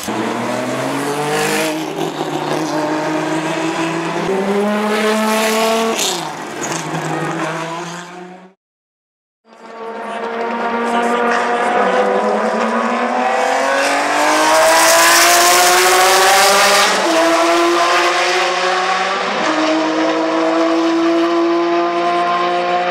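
BMW M1 Procar's M88/1 straight-six racing engine accelerating hard, its pitch climbing through the revs and dropping back at each upshift. It cuts out for about a second some nine seconds in, then comes back on another long climb with two more upshifts near the end.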